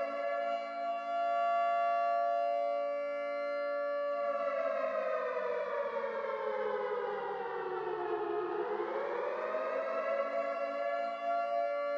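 Civil defense curfew siren sounding one long steady tone, which slides slowly down in pitch for about four seconds just before the middle, then rises back to its steady pitch and holds. It marks the start of curfew.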